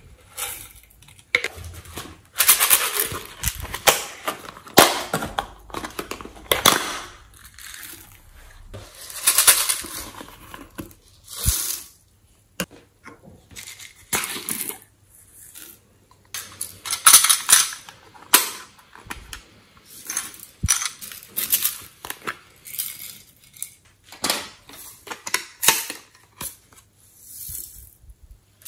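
Glitter and sequins being shaken out of small plastic toy containers onto slime in a glass dish: irregular rattling, pattering pours, with sharp clicks and knocks of the plastic containers being opened and handled.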